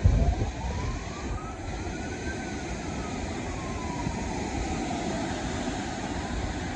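Hurricane wind and rain, a steady rush with a gust buffeting the microphone right at the start. A thin whistling tone glides up and back down once over about five seconds.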